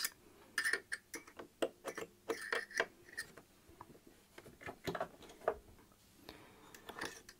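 Irregular light clicks and taps of an awl point picking at lint around the bobbin hook of a Bernina 1008 sewing machine.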